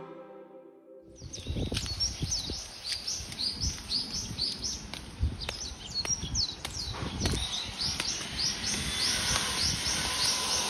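Background music trails off in the first second; then birds chirp on and on, a steady run of short falling chirps, two or three a second, over a low outdoor rumble.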